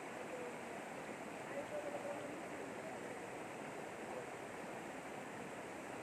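Shallow river running over rocks and small rapids: a steady wash of flowing water. Faint voices can be heard through it in the first couple of seconds.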